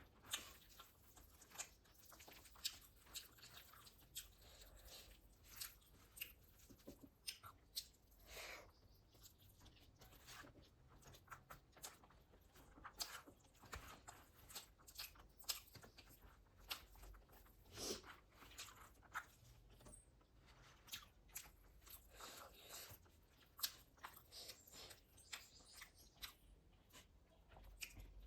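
A person chewing food close to the microphone: irregular crunches and wet mouth clicks, with no talking.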